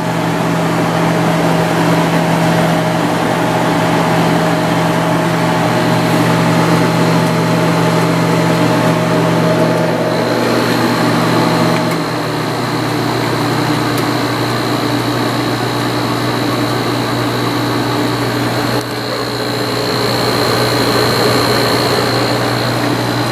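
1995 Sharp 10,500 BTU window air conditioner running, its Matsushita compressor humming steadily under the fan motor, which runs on newly replaced bearings, and the hiss of refrigerant moving through the lines. A faint high whine comes in partway through, and part of the low hum drops away about twelve seconds in.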